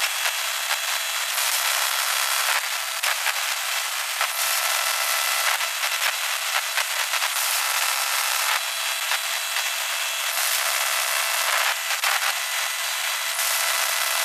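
Steady static-like hiss, thin with no bass, with faint high steady tones running through it. It swells slightly every second or two, like a radio-transmission sound effect.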